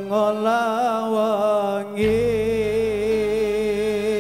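Live band music: a slow melodic line of long held notes with vibrato, joined about two seconds in by a low sustained bass.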